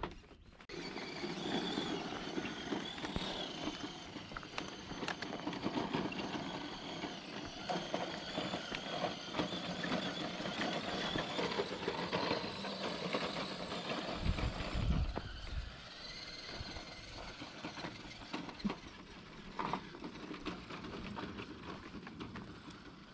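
Electric motor and gear drive of an RC crawler truck whining as it drives over dirt and gravel, the whine rising and falling with the throttle, with small crunches and clicks of the tyres on stones. A short low rumble about two-thirds of the way in.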